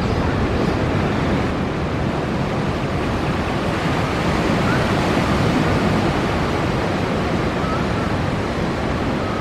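Ocean surf breaking, a steady wash of wave noise.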